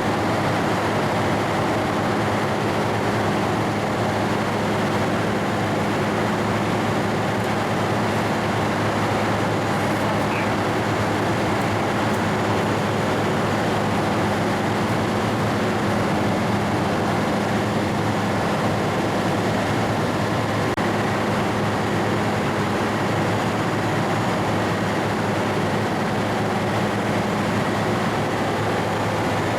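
Steady, unchanging engine drone with a low hum.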